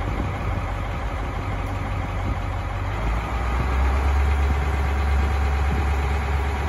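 Fishing boat engine running steadily, a low hum that grows louder about three seconds in.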